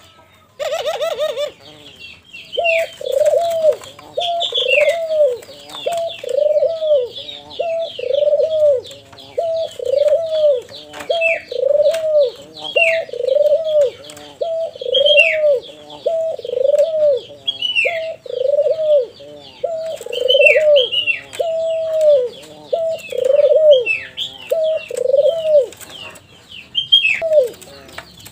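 Young albino dove cooing in a steady, unbroken series, about one coo a second, with short high falling chirps above the coos.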